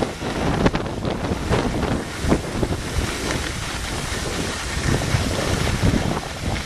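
Wind rushing over the microphone in uneven gusts, mixed with the hiss of skis sliding on packed snow.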